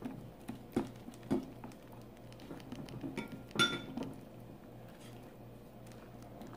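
Wire whisk beating corn dog batter in a glass mixing bowl: wet stirring with scattered clinks of the whisk against the glass, the loudest about three and a half seconds in with a short ring.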